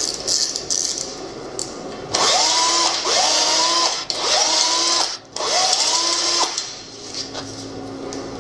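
An electric power tool, such as a drill, spinning up in four short bursts, each rising quickly to a steady whine, as parts of an old mini dirt bike are worked on. A few light clicks come first.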